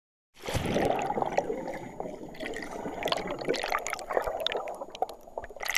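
Water sounds with a dense scatter of small clicks and pops, starting about half a second in and cutting off suddenly at the end.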